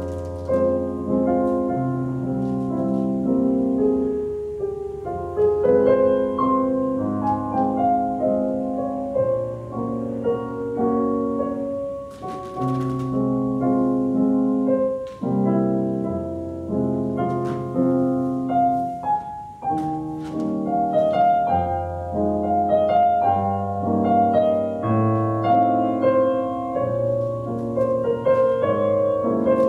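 Solo piano playing classical-style music in steady, evenly paced chords, the kind of accompaniment played for ballet barre exercises.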